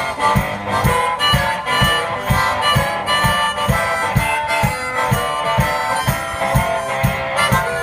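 One-man band playing: a harmonica carries the melody over guitar, with a steady low drum beat a little over two beats a second.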